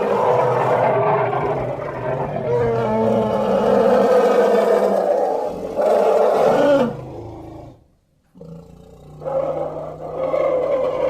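Elephant vocalizations: a long, rough roar that dies away about seven seconds in, then after a short gap a second, more tonal call.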